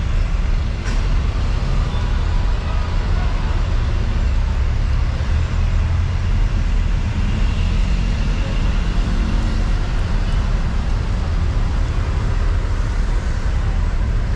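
Steady outdoor background rumble, heaviest in the deep bass, with no distinct events standing out.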